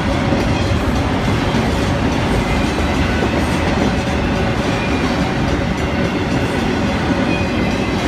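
Freight train of autorack cars rolling past at close range: a loud, steady rumble of steel wheels on the rails.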